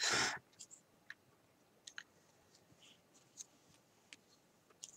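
Metal knitting needles ticking faintly and irregularly against each other as stitches are worked, about eight light clicks over a few seconds. A short breathy sound comes at the very start.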